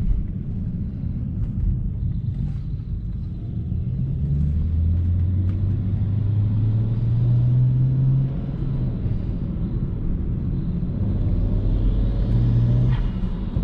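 BMW 335i's N54 twin-turbo straight-six running while the car is driven, a low drone whose pitch climbs slowly twice under light acceleration, dropping back about eight seconds in.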